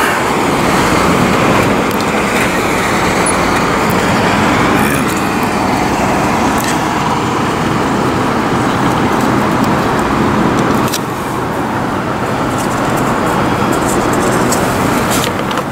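City street traffic: a steady noise of passing cars and other road vehicles, easing slightly about eleven seconds in.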